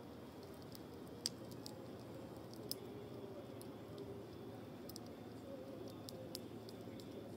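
Wood fire crackling faintly, with irregular sharp pops and snaps over a low steady hiss; the loudest pop comes about a second in, another near three seconds.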